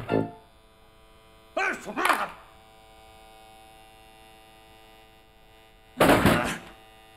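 A steady electrical hum, broken twice by a man's wordless vocal sounds: short mumbles about one and a half seconds in, and a louder, brief exclamation about six seconds in.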